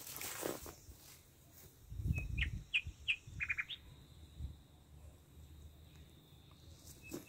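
A small bird chirping outdoors: a few short, high chirps about two to four seconds in, including a quick run of three notes. A low rumble comes about two seconds in, and there is a brief rustle at the start.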